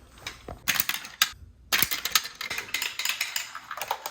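Rapid, irregular clicking and clattering of hard plastic marble-run pieces and marbles being handled, with a few louder clacks.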